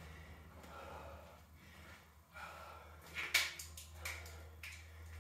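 A woman breathing hard, winded from a cardio interval, in slow repeated breaths. A few sharp clicks come about three seconds in.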